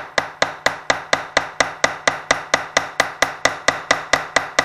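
Rapid, even hammer taps, about four a second, each with a short metallic ring, driving the wooden handle into the eye of a small steel tomahawk head.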